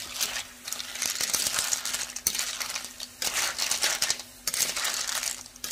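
A metal spoon stirring snails in their shells in a frying pan: the shells clatter against each other and the spoon scrapes the pan, in strokes about a second apart.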